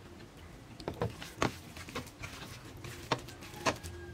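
Loose, sticky wheat-flour batter being worked in a steel bowl, with about half a dozen sharp clicks and knocks. The loudest come about one and a half, three and three and a half seconds in.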